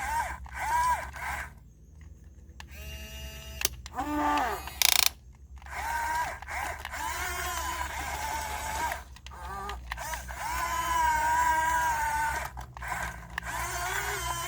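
RC model excavator's electric motors and gearboxes whining as its controls are worked. The whine starts and stops repeatedly, gliding up and down in pitch, with a short scraping burst about five seconds in.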